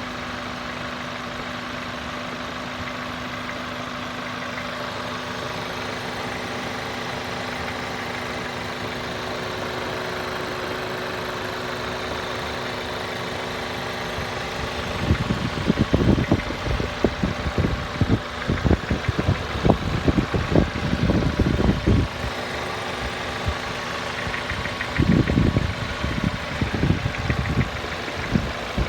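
Škoda Octavia A7's 1.8 TSI four-cylinder turbo petrol engine (CJSA) idling while warming up shortly after a cold start. About halfway in, a heavy, irregular knocking sets in, comes in two spells, and stops near the end; the owner's tags put it down to a piston knocking.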